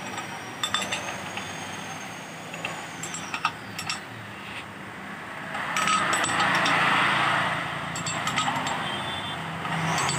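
Metal clicks and clinks as the crankshaft of a rebuilt Maruti Suzuki Eeco engine block is turned by hand with the pistons in, checking that it rotates freely without binding. A louder rushing noise swells about six seconds in.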